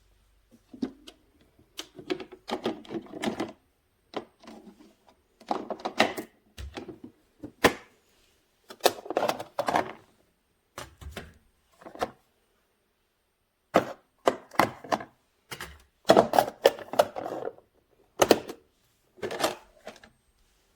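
Plastic parts of a single-serve coffee maker being handled and fitted together: irregular bursts of clicking and clattering, with short pauses between.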